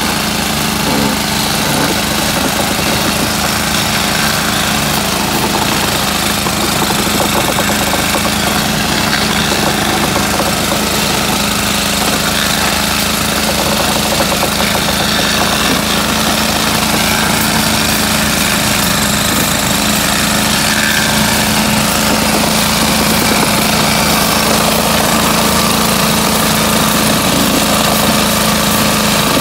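Small engine of a trolley-mounted power unit running steadily, driving handheld ballast tampers that pack track stone under concrete sleepers. A continuous mechanical hum with one steady tone, unchanged throughout.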